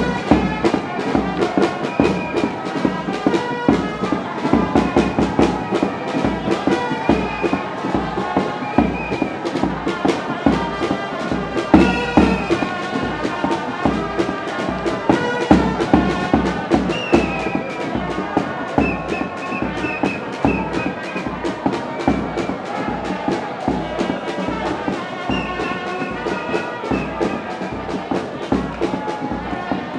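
Music with a steady beat and a high melody line in short phrases, loud and unbroken.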